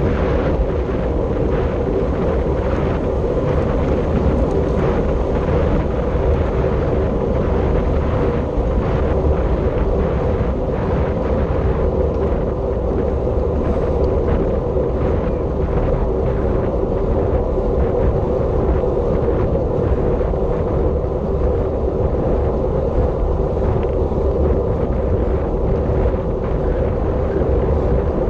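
Wind rushing over the microphone of a camera on a bicycle racing at speed, a steady loud rumble with a constant hum under it.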